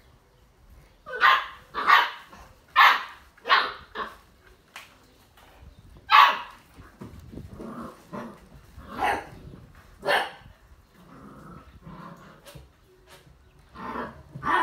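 Six-week-old Old English Sheepdog puppies barking in play: four sharp yaps in quick succession about a second in, then single yaps every few seconds, with another near the end.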